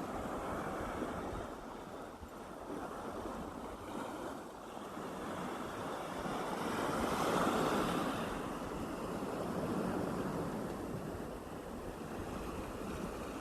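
Calm sea waves washing onto a beach in a steady hiss, one swell building to its loudest about halfway through and then receding. A low wind rumble on the microphone sits underneath.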